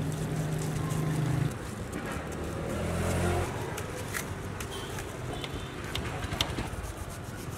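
Motor vehicle engines on a street. One engine hum cuts off about a second and a half in, and a second, deeper engine passes soon after. A few sharp clicks follow from about four seconds in.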